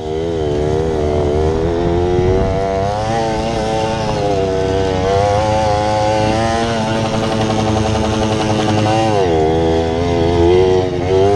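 Mini bike's small engine running under throttle while being ridden. The revs climb over the first few seconds and hold, drop off sharply about nine seconds in, then pick up again near the end.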